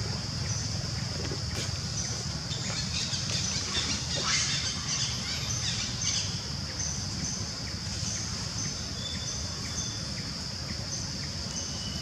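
Steady high-pitched drone of forest insects with a faster pulsing chirp over it, and a brief louder patch of noisy squeaks about four seconds in.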